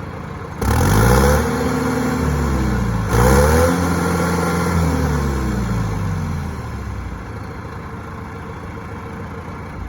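John Deere 450C diesel engine revved twice, about two and a half seconds apart. Each time it rises quickly, then slowly winds back down to a steadier, quieter running speed.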